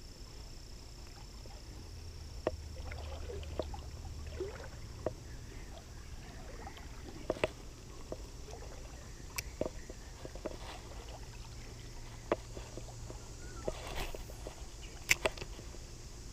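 Water sloshing and moving at the creek, with a dozen or so irregular sharp clicks and knocks scattered through, the loudest pair about fifteen seconds in.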